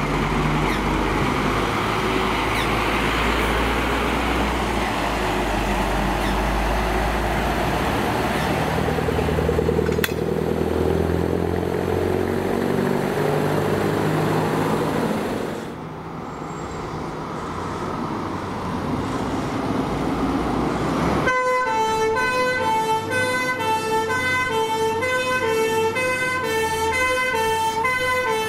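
A heavy diesel fire truck passes close, its engine and tyres rumbling. After a brief drop, a fire truck's two-tone siren sounds, alternating steadily between a high and a low note.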